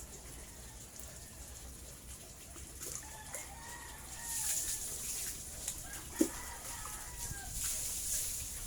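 A rooster crowing twice, each crow about a second long, over a steady high hiss.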